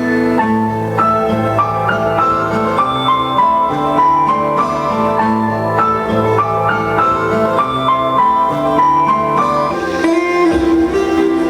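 Instrumental break in a Hindi song: a melody of short plucked notes over a steady repeating bass line. Near the end a new sustained, wavering melodic line enters.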